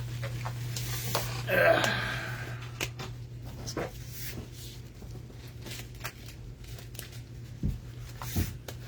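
Light handling noise: scattered small clicks and rustles of packaging and cards being handled, over a steady low electrical hum.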